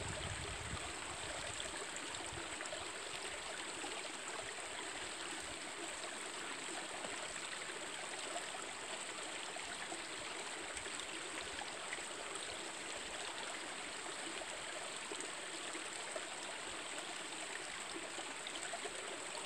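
Middle fork of the Coquille River flowing: a steady, unbroken rush of running water.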